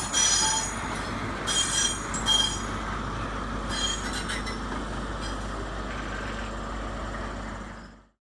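A Class 43 HST running out of the station over curved track, its wheels squealing in short, high-pitched bursts during the first few seconds, then a steadier fading rumble. The sound cuts off suddenly just before the end.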